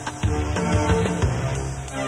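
Music from a digitised 1980s cassette: drum hits over a heavy low bass and held pitched notes, a few seconds into a track.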